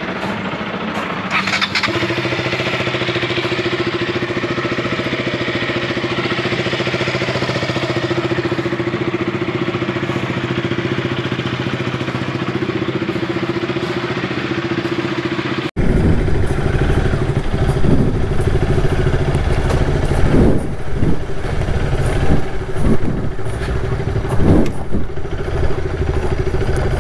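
Motorcycle engine running at a steady pitch while riding. About 16 s in an edit cuts to a louder, rougher stretch of uneven low rumble.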